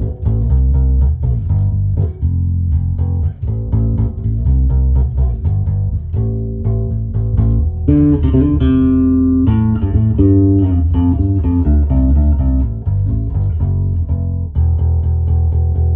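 Electric bass guitar played through a Hartke HD150 bass amplifier: a fast run of plucked notes with a strong low end, a stretch of higher notes about halfway through, and a long held low note near the end.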